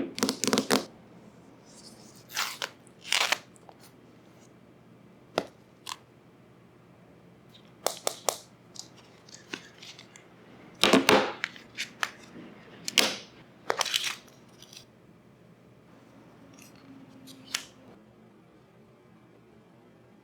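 Unboxing handling of iPhone boxes and packaging: irregular rustles of paper and cardboard, with sharp clicks and taps and short quiet pauses between them.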